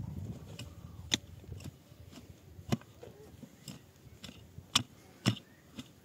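A pickaxe striking the earth at the bottom of a hole, a string of sharp knocks at uneven intervals, four of them loudest.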